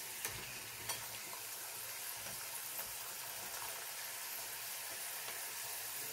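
Tapioca fritters (kozhikkal) deep-frying in hot oil: a steady sizzle, with two light clicks in the first second.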